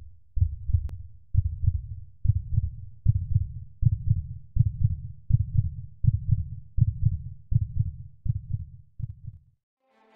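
Heartbeat sound effect: low double thumps repeating a little under once a second, quickening slightly, that stop shortly before the end.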